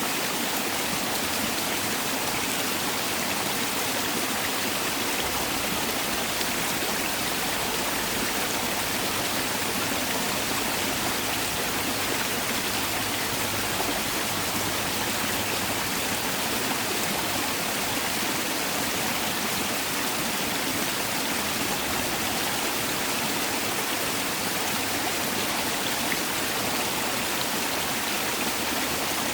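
Mountain valley stream: water rushing and splashing over rocks in a steady, even rush.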